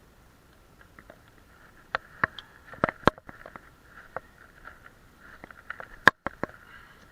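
Irregular sharp clicks and knocks, clustered about two to three seconds in and again about six seconds in, over a faint steady hiss.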